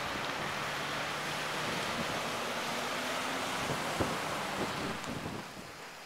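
Strong wind rushing and buffeting the microphone, a steady hiss, with a faint low hum underneath in the first few seconds. The wind noise falls off near the end.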